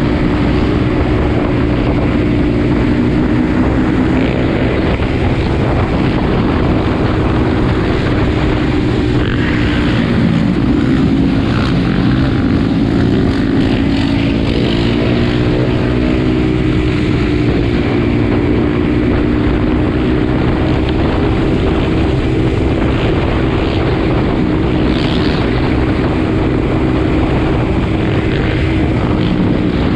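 Several four-wheeler (ATV) and motorbike engines running together in a loud, steady drone, their pitches drifting slightly up and down.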